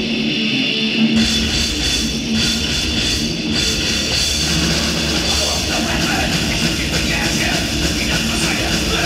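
Heavy metal band playing live, loud and distorted, recorded from the room rather than from the mixing desk. The guitar is alone at first, and the bass and drums crash in about a second in.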